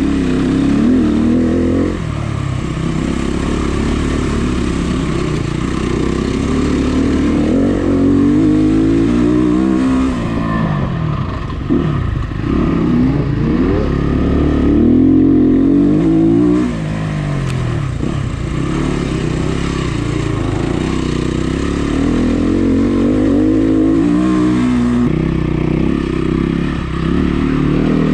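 Dirt bike engine heard from on board, running under load and revving up and back down again and again as the throttle is worked and gears change, with a few short drops in revs.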